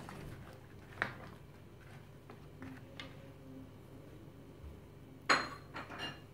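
Kitchenware clinking and knocking: light knocks about one and three seconds in, then a louder clatter with a short ring just after five seconds, followed by two smaller clinks.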